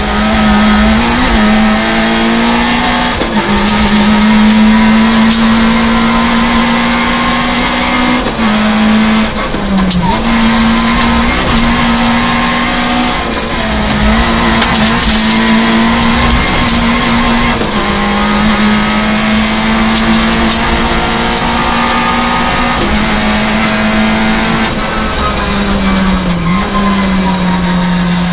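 Peugeot 106 rally car engine heard from inside the cabin, running hard at high revs on a stage. The engine note holds near one high pitch, dips briefly about eight times, and falls steadily near the end.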